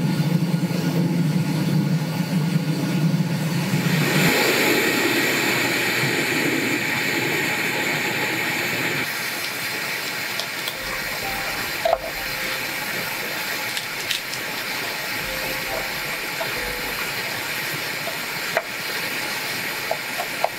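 A steady hiss with a low hum for the first few seconds, and a few light taps of a kitchen knife on a wooden cutting board while garlic is sliced in the second half.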